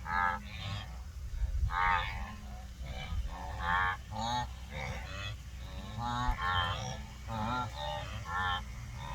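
A herd of wildebeest giving short nasal honking grunts, about a dozen calls from several animals overlapping one after another, over a steady low rumble.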